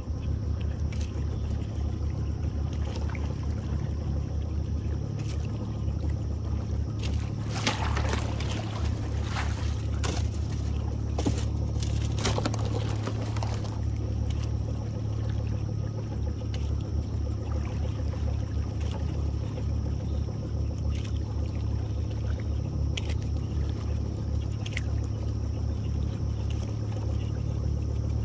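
Boat motor running steadily at low speed, a constant low hum, while the trotline is worked alongside. Splashing and trickling water stand out from about eight to thirteen seconds in.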